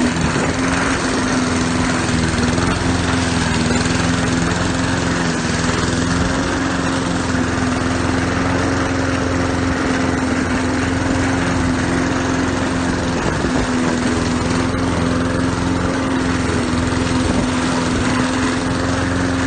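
Honda GCV135 single-cylinder overhead-cam four-stroke engine of a self-propelled walk-behind lawn mower running steadily while mowing grass.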